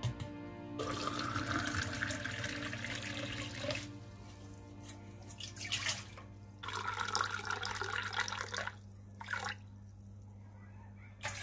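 Water poured from a drinking glass into a large stainless steel bowl, splashing on the metal: one long pour, then a second after a pause, then a short splash. Soft background music plays throughout.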